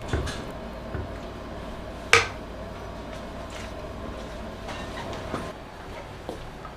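Kitchen handling of a clay pot of congee: a ladle stirring and knocking in the pot, with one sharp clank about two seconds in and a few lighter knocks, over a faint steady hum.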